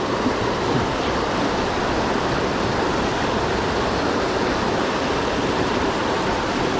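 Rushing stream water running steadily at a rocky crossing, a loud, even rush.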